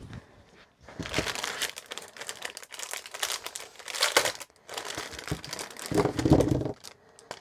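Clear plastic packaging sleeve crinkling and rustling as hands open it and slide out a card and rolls of washi tape, loudest about six seconds in.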